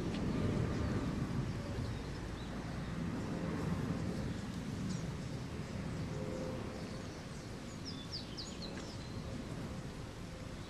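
Outdoor ambience: a steady low rumble, with a few short high bird chirps about five seconds in and a quick cluster of them around eight to nine seconds.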